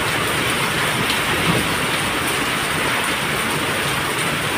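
Heavy rain pouring steadily, an even, unbroken hiss of rain falling on the street and nearby surfaces.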